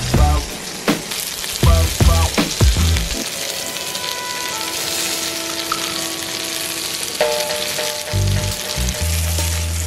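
Floured fish fillets frying in butter in a pan, giving a steady sizzle. Background music plays over it, with a thumping beat in the first few seconds and again near the end, and held notes in between.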